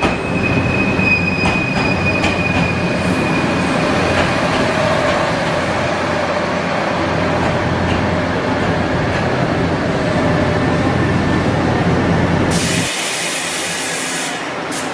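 TRA DR3100 diesel multiple unit rolling slowly past as it pulls into the station, its diesel engines rumbling and its wheels squealing in a steady high note for the first few seconds. Near the end the rumble drops away and a loud hiss takes over.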